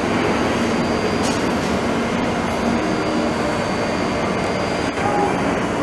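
Steady hum of a Taoyuan Airport MRT train standing at the platform, its running equipment drowning out a faint, steady high whine.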